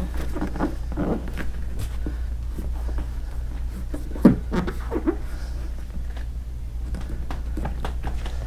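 Light handling sounds of hands pressing and working a vinyl D-ring patch onto an inflatable paddle board: scattered soft taps and rubs, with one sharper knock about four seconds in, over a steady low hum.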